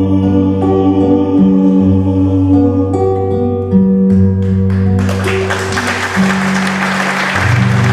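Live music of long, steady held notes, ending a piece; audience applause breaks in about five seconds in over the last notes.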